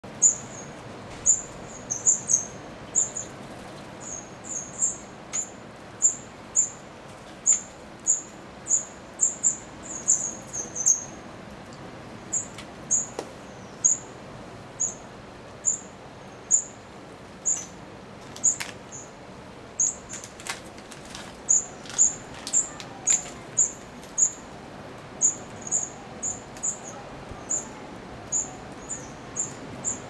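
Small birds chirping: short, high-pitched chirps repeated every half second or so, with a few faint clicks in the middle.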